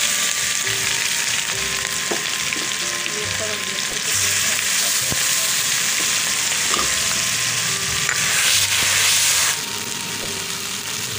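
Ginger-garlic paste and fried onions sizzling loudly in hot oil in a metal pan while a metal spoon stirs and scrapes, with a few sharp taps. The sizzle swells about four seconds in and again about eight seconds in, then falls back a step near the end.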